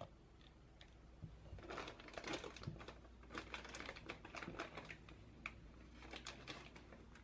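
Clear plastic piping bag crinkling as it is held open and chocolate cream is scraped into it with a silicone spatula: a run of irregular soft crackles and rustles starting about a second and a half in.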